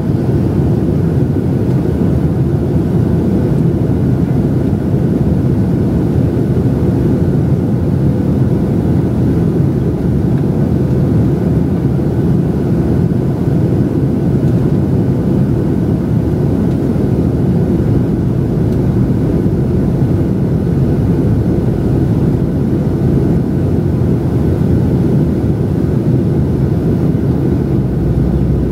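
Steady cabin noise of a Boeing 737-700 in flight: the CFM56-7B jet engines and the airflow over the fuselage make a low, even rumble with a faint steady whine above it.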